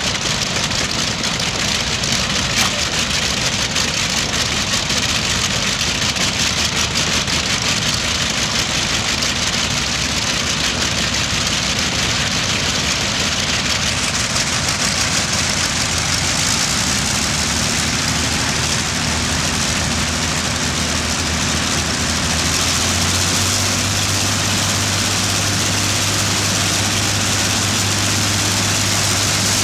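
Large piston aircraft engines running on test trailers, a radial and a Rolls-Royce V12, making a loud, continuous drone. About two-thirds of the way through the sound changes, with a steady low tone coming in and more high hiss.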